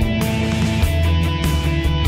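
Background rock music with distorted guitar and a steady drum beat.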